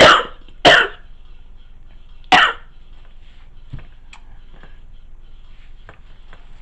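A woman coughing: a few separate coughs within the first two and a half seconds.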